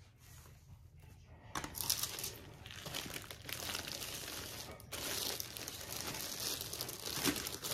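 Tissue paper and clear plastic wrapping crinkling and rustling as a rolled canvas is handled, starting about one and a half seconds in, with a short break near five seconds.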